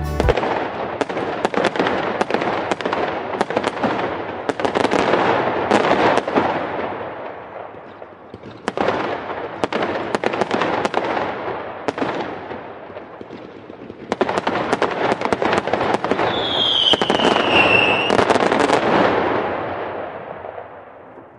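Fireworks display: dense crackling and banging of bursting shells, coming in three loud waves that ease off in between. A short whistle falls slightly in pitch about two-thirds of the way through, and the bursts fade away near the end.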